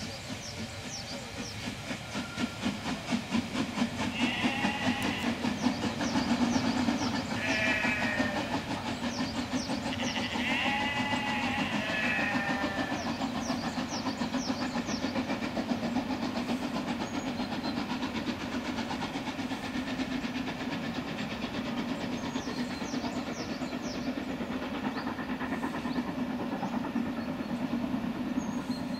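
Harz narrow-gauge steam locomotive pulling a train out of a station, its exhaust chuffing in a fast, steady rhythm that grows louder a few seconds in. Several brief high-pitched squealing tones sound between about 4 and 12 seconds in.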